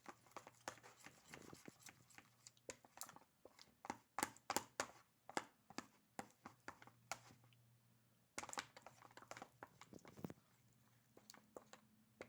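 White glue being stirred in a bowl: faint, irregular clicks, taps and scrapes of the stirring utensil against the bowl and through the sticky glue.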